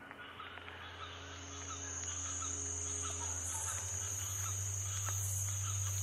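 A steady, high, shrill insect buzz, with faint small chirps, over a low steady music drone that fades in and grows louder.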